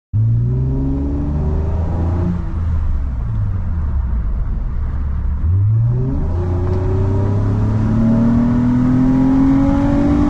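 2011 Lexus ES350's 3.5-litre 2GR-FE V6 running under throttle as the car drives. The revs rise and fall a few times, jump up quickly about five and a half seconds in, then climb slowly and steadily over the last few seconds.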